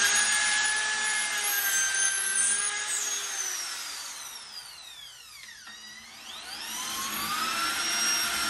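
A small electric motor whining steadily, its pitch and loudness sinking about halfway through and then climbing back up.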